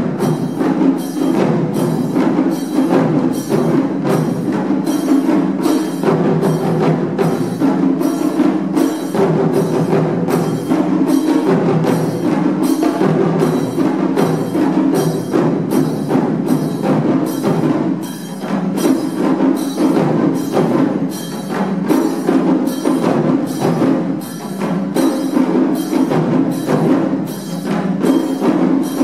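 Taiko ensemble playing: many players striking barrel-shaped taiko drums with wooden sticks in a dense, steady, driving rhythm.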